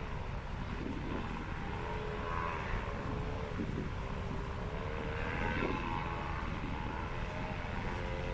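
Paramotor engine and propeller droning overhead, its pitch drifting slowly up and down, over a low rumble of wind.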